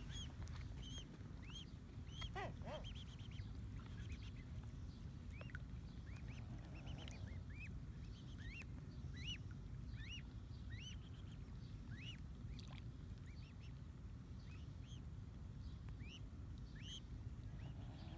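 Mute swan cygnets peeping: short, high, arch-shaped calls repeated irregularly, about one or two a second, over a low steady background rumble.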